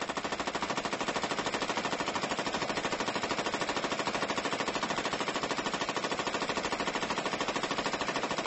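A 7.62 mm HK21E machine gun firing one long uninterrupted automatic burst, a fast and perfectly even stream of shots. It is sustained fire of a 500-round run with no stoppage.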